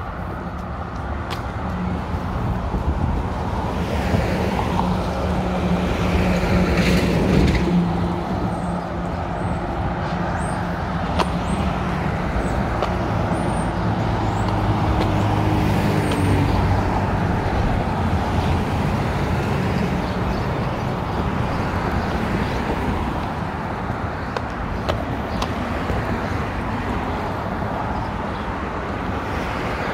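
Traffic on a multi-lane city road: cars and heavy vehicles driving past, with engine hum and tyre noise. One loud engine passes about two to eight seconds in and another around the middle.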